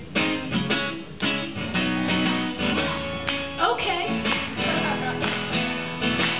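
Acoustic guitar strummed in a steady rhythm, a live solo song's instrumental intro.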